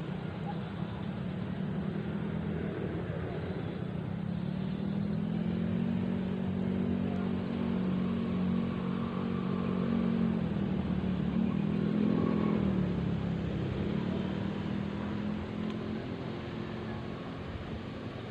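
A motor engine running at a distance, a steady hum whose pitch rises and falls slowly, growing louder toward about two-thirds of the way through and then fading.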